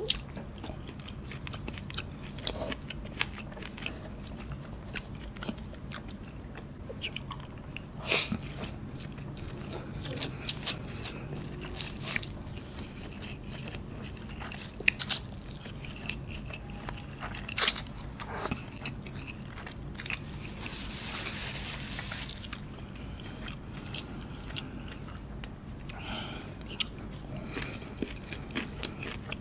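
Close-up eating sounds of noodles being eaten by hand: chewing and biting with irregular sharp crunches and smacks. One sharp click about two-thirds through is the loudest, and a short stretch of hiss follows soon after.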